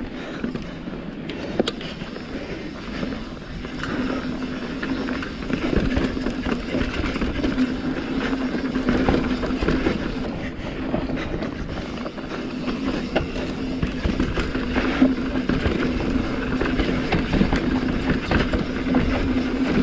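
Mountain bike descending a dirt forest trail: a continuous rushing noise of tyres rolling over dirt and roots, with the bike rattling and knocking over bumps. It grows louder about four seconds in.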